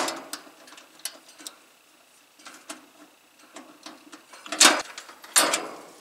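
Handling noise from refitting the sheet-metal access panel on a heat pump's outdoor unit: small ticks and clicks of metal and tools, with a sharp knock at the start and two more a little before the end.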